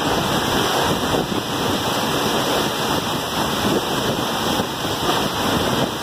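Waterfall crashing into its plunge pool at close range: a steady, unbroken rush of falling water.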